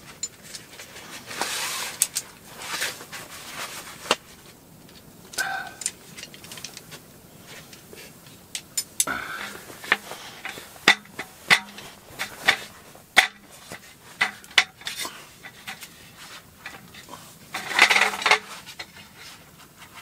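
A roll-up slatted camp table being unpacked and set up: its slats and frame clatter and clink in short bursts with many sharp clicks, along with rustling of its carry bag.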